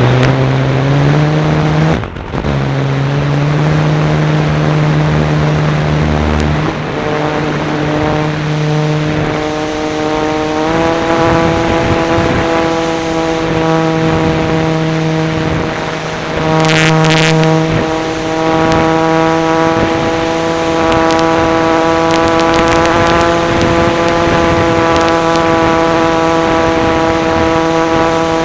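Radio-controlled model Cessna's engine running close to an on-board camera: it revs up near the start, steps up to a higher, steady pitch about ten seconds in, and holds there. A brief high whine comes in for about a second around seventeen seconds in.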